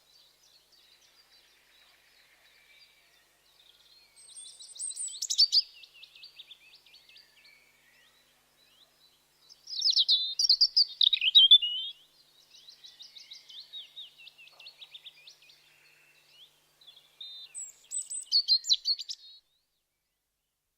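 European robin singing: three loud bursts of high, rapid warbling song, about 4, 10 and 18 seconds in, with softer twittering between them.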